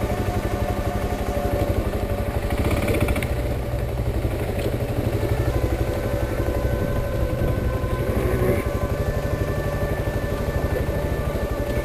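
BMW 650 single-cylinder dual-sport motorcycle engine running at low speed over a rough, rocky track, its note shifting a couple of times as the rider works the throttle.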